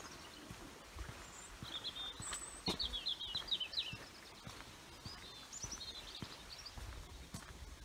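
Small songbirds singing in quick, high chirping phrases, one burst about two seconds in and another past the middle, over the footsteps of someone walking on a muddy dirt track.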